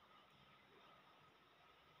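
Near silence: faint room tone with a faint steady high hum.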